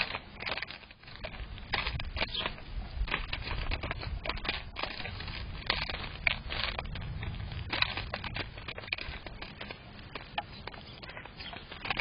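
House sparrows pecking and cracking sunflower seeds in a plastic tray: a busy, irregular run of sharp clicks and crackles over a low rumble.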